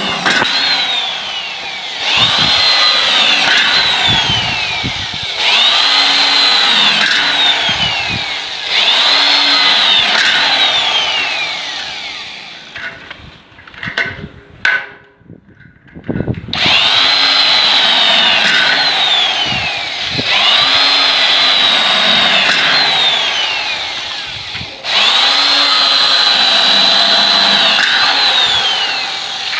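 Electric drill run in about six bursts of two to four seconds, its motor whining up to speed and winding down after each release of the trigger, with a short break of a few seconds midway.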